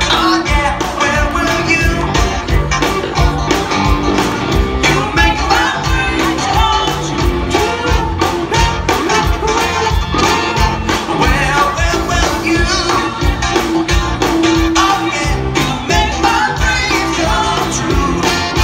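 Live band of drums, guitars, keyboard, trumpet and saxophone playing a song with singing over a steady drumbeat.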